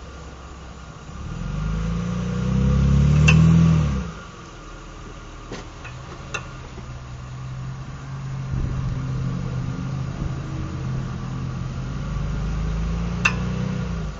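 2007 Mitsubishi Eclipse pulling away under load, the engine rising in pitch then easing off, with a few sharp clicks several seconds apart. The clicking is the sign of a failing left drive axle (CV joint): replacing the drive axles cured it.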